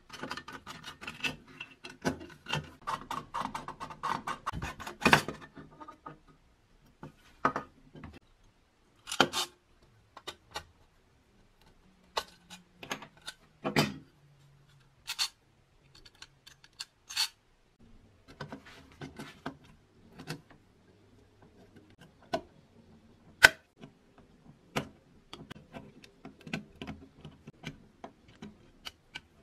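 Clicks, taps and light scraping of thin tinplate parts as a 1940s JEP toy speedboat is taken apart by hand and with pliers. A dense run of clicks comes over the first several seconds, then scattered single clicks.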